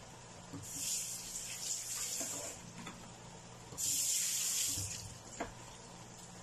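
Tap water running into a sink in two short spells, about two seconds and then about a second, each starting and stopping abruptly, followed by a single sharp click.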